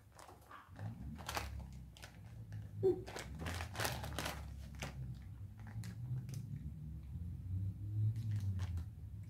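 Plastic wrapper of a Swedish Fish mini candy pack crinkling and tearing as it is pulled open by hand, a burst of sharp crackles in the first half that thins out afterwards.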